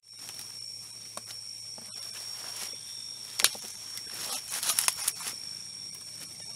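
Steady high-pitched insect drone, with rustling and snapping of coffee leaves and stems as a tree is gripped and handled: a sharp crack about three and a half seconds in and a quick run of rustles and snaps about a second later.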